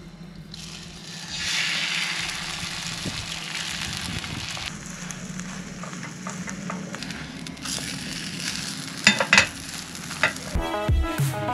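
An egg sizzling as it fries in a nonstick pan on a portable gas stove; the sizzle swells about a second in as the egg goes into the hot oil. A metal spatula clicks and scrapes against the pan a couple of times near the end.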